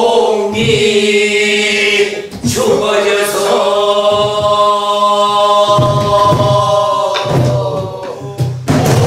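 Pansori singing in long, slowly bending held notes, led by a woman's voice, in the slow jinyangjo rhythm, with a few sharp buk barrel-drum strokes.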